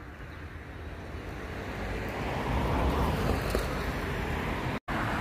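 Road traffic noise with wind rumbling on the microphone, swelling about two seconds in, with a split-second break in the sound near the end.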